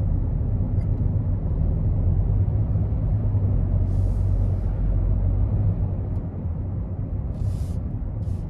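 Steady low rumble of a Daihatsu Taft kei car driving along at road speed, its engine and tyre noise heard from inside the cabin.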